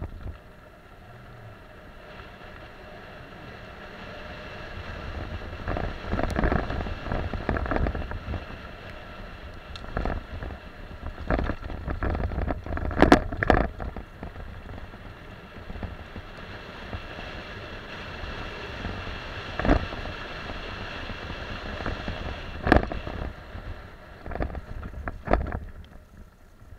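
Wind rushing over the microphone and mountain-bike tyres crunching on loose gravel during a fast downhill descent, building over the first few seconds as speed picks up. Sharp clanks and rattles from the bike hitting bumps come now and then.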